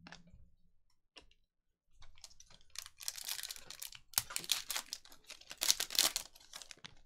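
A foil trading-card pack being torn open and crinkled by hand, a dense crackling that starts about two seconds in and peaks twice, after a couple of light clicks.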